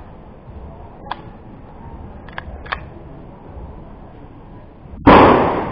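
A single pistol shot about five seconds in, sharp and very loud with a short echoing tail, after a few faint clicks earlier on.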